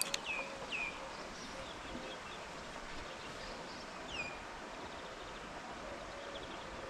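A bird calling with short, quick downward chirps, a few in a row near the start and one more about four seconds in, over a steady outdoor hiss. A sharp click sounds right at the start.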